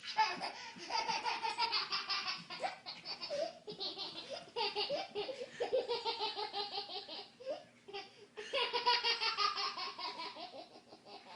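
A baby laughing hard: high-pitched belly laughs in several long bouts with short pauses between them.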